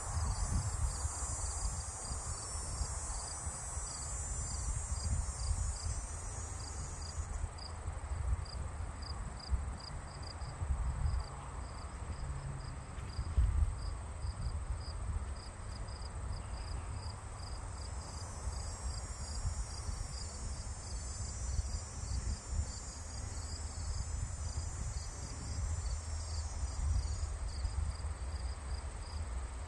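Insects chirping in a steady chirp repeated about twice a second, with a higher insect hiss that fades out about seven seconds in and returns in the second half, over a low rumble.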